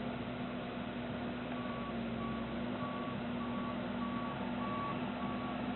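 2009 New Holland L175 skid steer's diesel engine running steadily, with its backup alarm starting about a second and a half in and beeping evenly, a little under twice a second, as the machine reverses.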